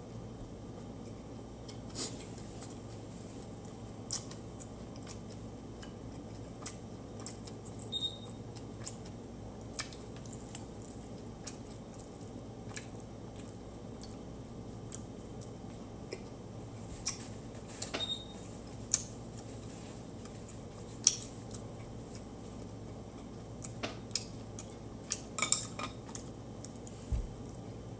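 Chopsticks and a spoon clicking and tapping against ceramic bowls and plates while eating, in irregular scattered strikes that come more often near the end, a couple of them with a brief ring. A steady low hum runs underneath.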